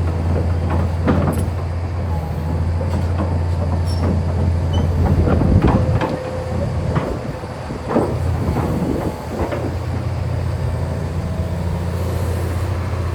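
Kobelco SK500LC-9 excavator being operated: its diesel engine runs with a steady low drone while the machine gives off a series of metallic clanks and knocks. The drone eases for a few seconds in the middle.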